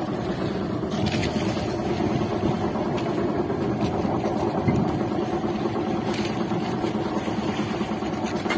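Outrigger fishing boat's engine idling steadily.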